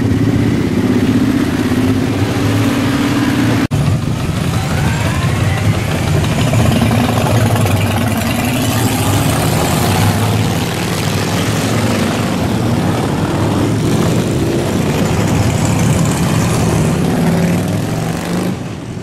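Cruiser motorcycles riding past one after another, their engines running at low revs with the pitch rising and falling as the throttle opens and closes. The sound cuts out for an instant about four seconds in.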